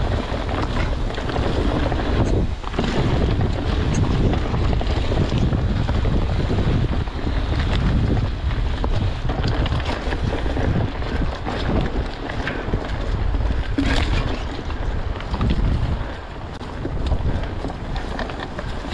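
Wind buffeting the microphone of a handlebar-mounted camera on a mountain bike riding downhill on dirt singletrack, with the tyres rolling over the trail and the bike clattering over bumps in scattered short clicks.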